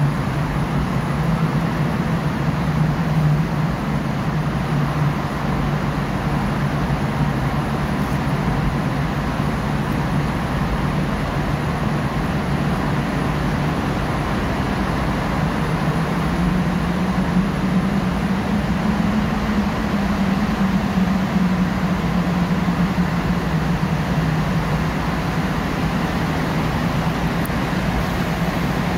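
Steady road noise heard inside a moving car's cabin in a road tunnel: tyre rumble with a low engine drone that rises slightly in pitch a little past halfway, then settles again.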